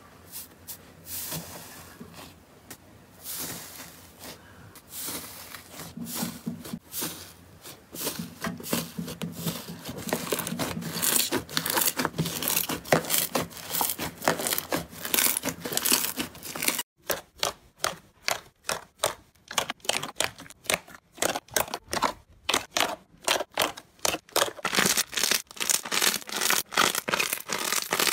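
Hands squishing and pressing thick, fluffy slime, giving a dense run of crackling and tearing sounds. After a short break about 17 seconds in, a second slime is squeezed in a fist with sharper, separate crackles.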